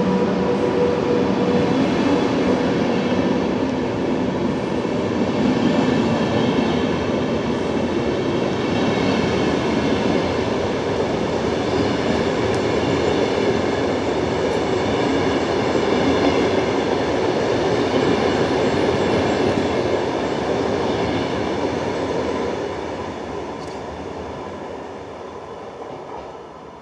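Double-deck InterCity passenger coaches rolling past as the train departs, with the steady running noise of wheels on rail. The sound fades away over the last few seconds as the rear of the train draws off down the line.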